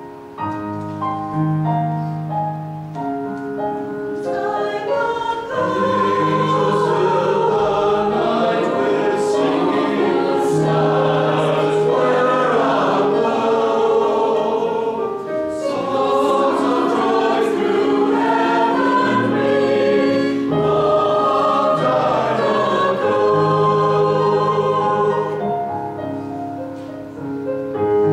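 Mixed choir singing with piano accompaniment; the piano plays alone for the first few seconds and again near the end.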